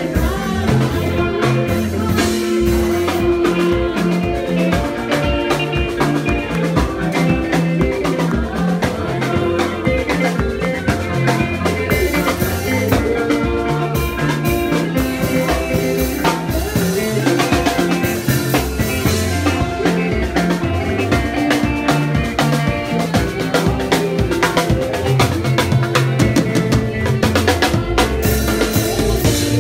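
Live band playing sebene-style gospel dance music: electronic keyboard, drum kit with steady beats and rimshots, and an electric bass line, without a break.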